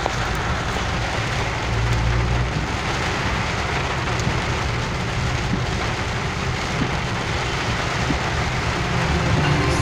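Heavy rain falling on a car's roof and windscreen, heard from inside the cabin, over the steady low rumble of the car on a wet road.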